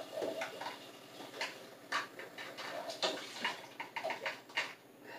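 Irregular light clicks and knocks of kitchen items, such as containers and dishes, being handled and set down.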